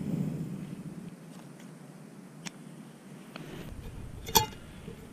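Camping cookware being handled: soft rustling and a few light clicks, then a sharp metallic clink with brief ringing about four seconds in as the aluminium frying pan knocks against metal.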